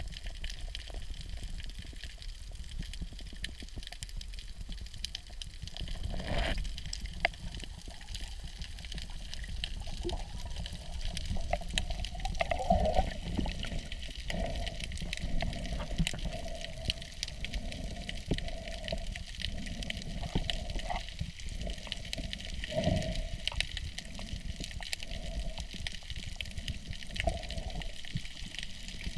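Seawater sloshing and muffled rumbling heard from underwater while snorkeling, with louder irregular surges now and then.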